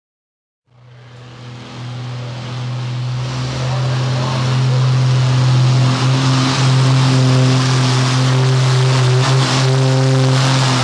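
Antique International Harvester tractor's engine running hard through its straight exhaust stack while pulling down the track, cutting in about a second in and building over the next few seconds to a loud, steady run at constant speed.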